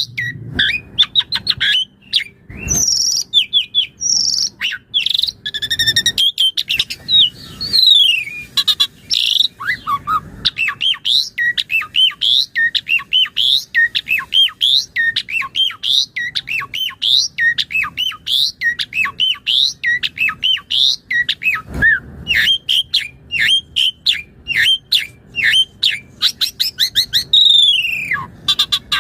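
Asian pied starling (jalak suren) singing a long, unbroken run of short, varied whistles and chirps, several notes a second, with mimicked phrases worked into the song.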